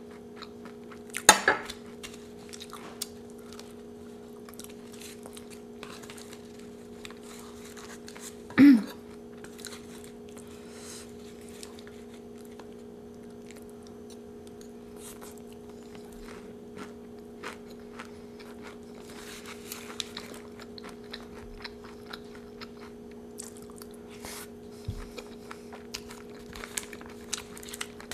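Close-up chewing and crunching of a Doritos taco, with small clicks of a metal spoon and rustles of the foil wrap, over a steady low hum. A sharp clack comes about a second in and a louder short sound near nine seconds.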